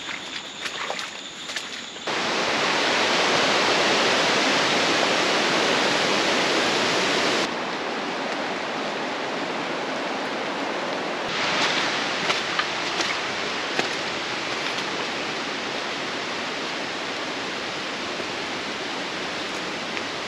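Footsteps on a wet, muddy forest trail for the first two seconds, then a steady rush of water noise in the rainforest. It gets suddenly louder about two seconds in and drops back about halfway through, where the clips change.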